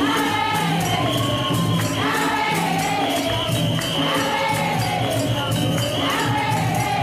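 Church congregation singing a gospel song together, with a tambourine shaking a steady beat and a bass line underneath.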